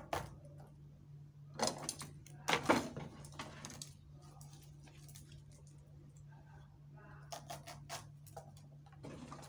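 Scattered light clicks and clatter of leather wayang kulit puppets and their rods being handled and pushed into the puppet stand, busiest in two spells about two seconds in and near the end, over a steady low electrical hum.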